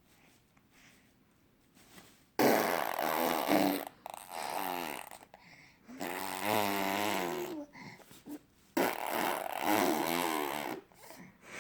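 An 8-month-old baby blowing raspberries, his lips buzzing into farting noises. After about two quiet seconds come four long buzzes, some with his voice sounding through them in a wavering pitch.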